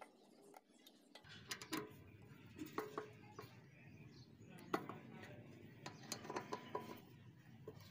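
Screwdriver turning and seating Phillips-head screws in a painted sheet-metal panel: scattered small metallic clicks and scrapes, the sharpest a little under five seconds in.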